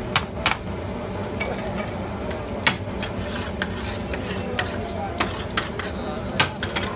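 Long-handled metal ladle clinking and scraping against a large round flat pan as the cook stirs the oil pooled in the middle, in sharp irregular strikes about ten times, over a steady sizzle of frying.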